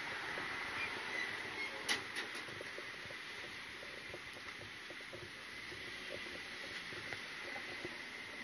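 Outdoor street ambience: steady background noise with a faint, steady high-pitched tone, and one sharp click about two seconds in followed by a few fainter ticks.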